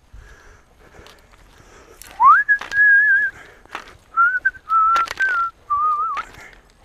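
A person whistling a few held, wavering notes, the first sliding up into a high note about two seconds in, then several slightly lower notes with short breaks. Under it, sharp knocks and rattles of a mountain bike riding over a rough woodland trail.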